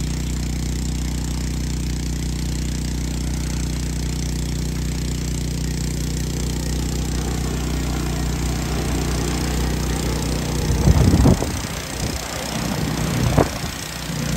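DJI Agras T10 spray drone's rotors humming steadily as it hovers overhead. About eleven seconds in, it comes down to land, and two loud gusts of rotor wash buffet the microphone.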